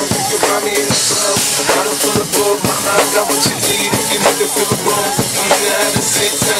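A drum kit played live along with recorded hip-hop music, with kick and snare hitting a steady beat about twice a second and cymbals over the track.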